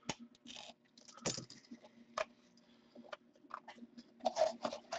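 Trading-card box being opened by hand: scattered light clicks, taps and short rustles of cardboard and packaging, over a faint steady hum.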